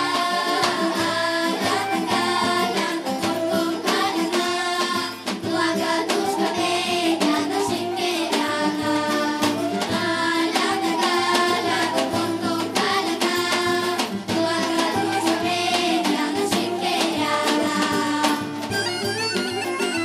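Children's folk choir singing a Bulgarian folk song together, accompanied by a tapan bass drum and a tambura. Near the end the singing stops and an instrumental passage begins.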